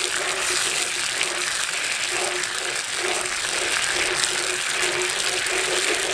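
Sorrel-jelly sauce bubbling and sizzling in a cast iron skillet over a wood fire, a steady hiss with quick small pops, while a wooden spatula stirs it.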